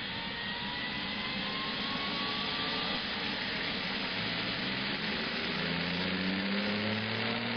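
Neato XV-11 robot vacuum cleaner's motors running with a steady whir. A low tone slowly rises in pitch from about four seconds in, as the motor spins up.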